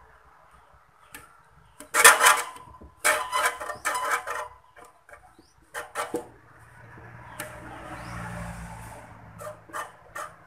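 Metal clicking and rattling from a stand fan's electric motor being handled, its rotor and shaft turned and knocked in a dried-out, stiff bushing as it is freed and lubricated. The sound comes in several irregular bursts, loudest about two and four seconds in, with a softer scraping sound near the end.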